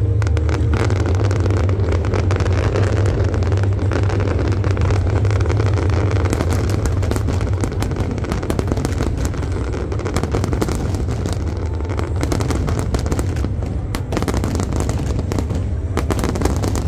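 Large fireworks display: dense, rapid crackling and popping of glittering shells over a steady deep rumble, the crackle growing thicker about halfway through.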